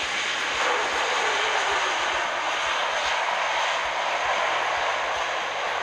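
An Airbus A340's four jet engines running in reverse thrust on the landing roll, with the pivoting-door thrust reversers deployed. It is a loud, steady rush of jet noise, with a faint tone gliding down in pitch about a second in.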